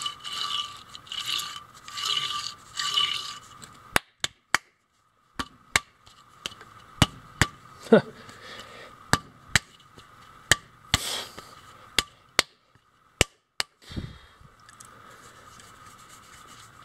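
Gunk being scraped out of an electric boat motor's housing: four scraping strokes, then a run of sharp, irregular clicks and a last short scrape near the end.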